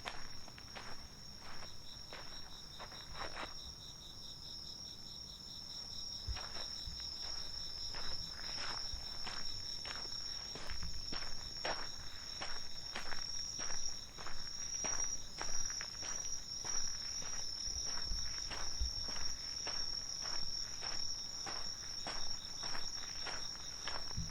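Night insects, crickets among them, chirring steadily at a high pitch, with the walker's footsteps at a steady pace of about two a second, plainer from about six seconds in.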